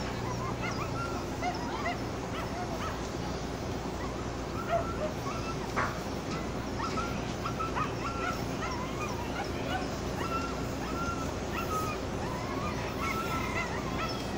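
Steady low drone of the ship's diesel engine, with many short, high-pitched yelping calls over it, several a second.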